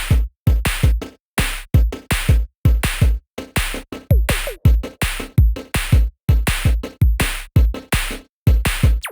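Electronic background music with a punchy drum-machine beat and deep kick drum, chopped into sharp stops between hits.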